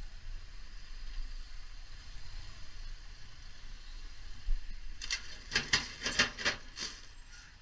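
A motorcycle creeping through slow city traffic: a steady low engine and road rumble. About five seconds in comes a quick run of about eight short, sharp sounds.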